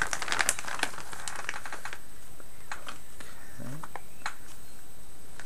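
Resin model parts and their plastic bags being handled: quick light clicks and a light rustle, busy for the first two seconds and then sparse taps. A brief murmured voice sound about three and a half seconds in.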